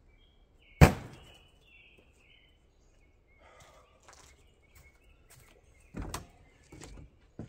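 A single sharp thunk about a second in, with birds chirping briefly after it. Near the end, heavy footfalls as a man steps up onto a pop-up camper's metal entry step.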